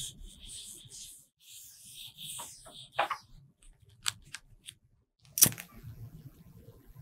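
A lemon-juice-dampened cotton swab scratches and rubs across a sheet of paper, followed by a few light clicks. About five and a half seconds in, a disposable flint lighter is struck with a sharp click and lights.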